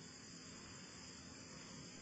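Near silence: a faint, steady hiss with a low hum underneath, the background noise of the sermon recording between phrases.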